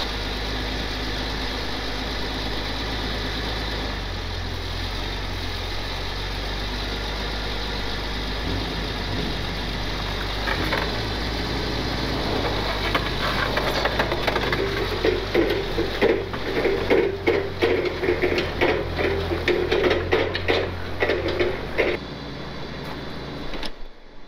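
Clark forklift's propane-fuelled engine idling steadily after starting. From about halfway through, a run of irregular crunches and knocks sounds over it for several seconds.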